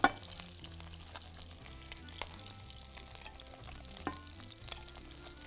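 Chicken skin frying in oil in a frying pan, with a steady sizzle, and a spatula clicking against the pan twice, about two and four seconds in. The skin is browned but not yet crisp, still rendering its fat.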